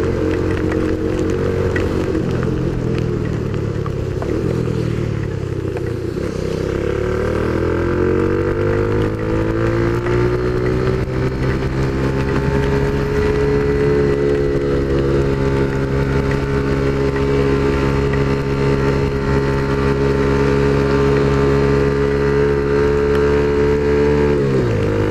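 A Dafra Zig 100cc scooter's engine running while riding. The engine note sinks over the first few seconds, climbs as it accelerates, holds steady for a long stretch, then drops sharply near the end as the throttle closes.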